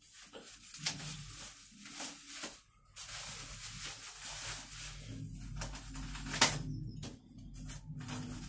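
Clear plastic wrapping and packing tape on a long parcel rustling and tearing as it is cut open with hand shears and pulled apart, with a sharp click about six seconds in.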